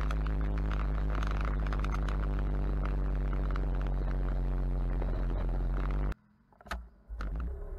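Motorcycle engine running at a steady cruising speed, heard from the moving bike with wind buffeting the microphone. It cuts off abruptly about six seconds in, and after a brief click a quieter steady vehicle sound starts near the end.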